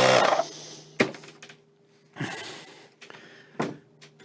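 Small electric air pump used to blow a golf grip onto the shaft, running with a steady hum that stops about half a second in. A few sharp clicks and a brief rustle follow.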